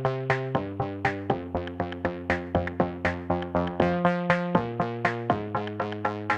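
Background music: electronic synthesizer music with a steady pulse of short, sharp notes, about three a second, over held low bass tones that change pitch now and then.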